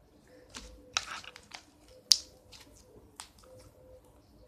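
Slime being handled and pressed in the hand, making an irregular run of small clicks and pops, the sharpest about two seconds in.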